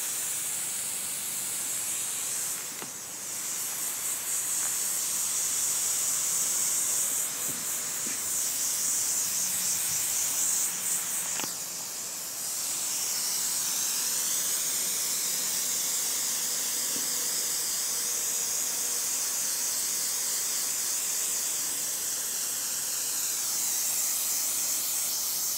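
Garden hose spray nozzle hissing steadily as it sprays water over a raised bed of soil, dropping briefly about 3 seconds in and again about 12 seconds in.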